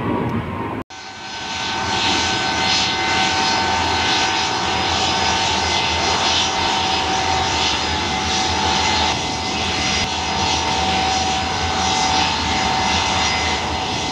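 Y-20 military transport's four turbofan engines running on the ground: a steady roar with a high, steady whine of several held tones, broken by a brief dropout about a second in.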